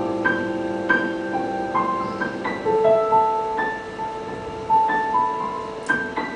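Slow solo piano music: a melody of single notes, about two a second, over held lower notes that die away about halfway through.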